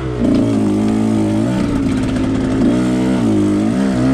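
2021 KTM 125XC's two-stroke engine being ridden on a dirt trail, its pitch rising and falling several times as the throttle is opened and rolled off.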